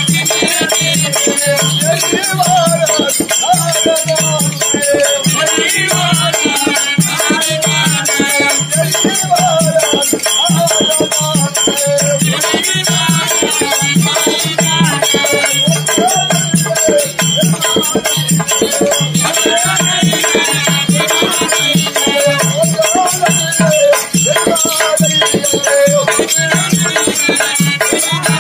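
Therukoothu folk-theatre music: a drum keeping a steady beat, with small cymbals and a dancer's jingling ankle bells over a wavering melody line.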